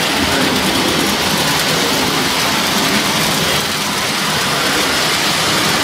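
Model trains running on the layout's track: a steady rumbling whir of motors and wheels on rail, with no breaks or distinct clicks.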